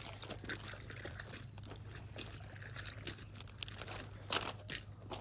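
Irregular small clicks and crackles from close handling, over a faint steady low hum.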